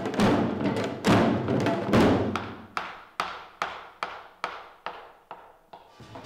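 Ensemble of traditional Korean drums struck in unison with sticks: a few loud heavy strokes, then a run of single unison beats that come slightly faster and fade away near the end.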